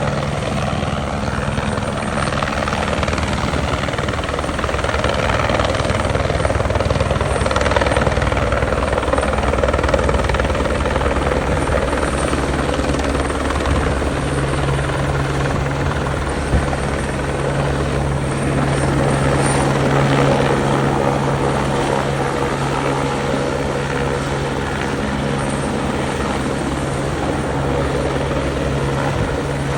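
Helicopter running close by: a steady, rapid rotor beat over engine noise, with a low hum that grows stronger about halfway through.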